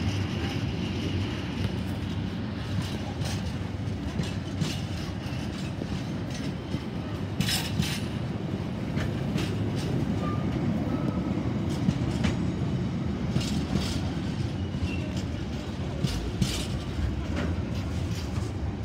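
Container freight train's wagons rolling past steadily: a continuous low rumble with the wheels clacking irregularly over the rail joints.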